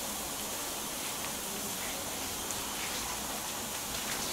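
Mushrooms and onion slices sizzling on a hot grill plate: a steady, even hiss with a few faint tiny pops.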